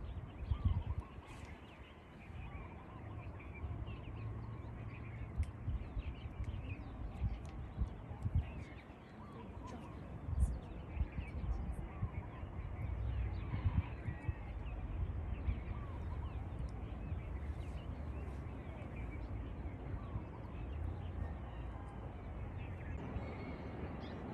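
Many birds calling and chirping at once in a dawn chorus, over a low, uneven rumble with occasional thumps.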